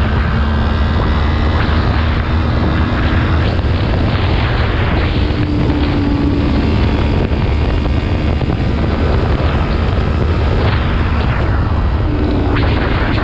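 Wind buffeting the camera microphone over the steady running of a 2019 Yamaha MT-25/MT-03's parallel-twin engine at road speed, the engine note shifting a little in pitch.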